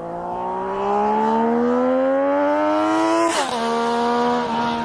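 Motorcycle engine accelerating, its pitch climbing steadily, then falling sharply about three seconds in with a brief whoosh and running on at a lower, steady pitch.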